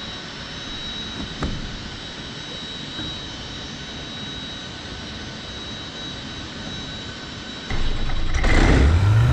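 Light aircraft's engine running, a steady even drone with a thin high whine over it. Near the end it gets louder and a low hum rises in pitch, then holds steady.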